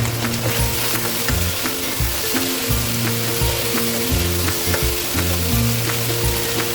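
Chicken, mushrooms and onion sizzling steadily as they are stir-fried in a hot pan, with a spatula clicking and scraping against the pan several times.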